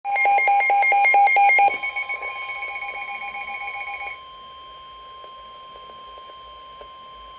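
Weather radio alert: a rapid, alternating two-pitch alarm beeping, loud at first and dropping in level after under two seconds, then stopping about four seconds in, over a steady single warning tone that holds throughout, Weatheradio Canada's 1050 Hz weather alert tone announcing a warning.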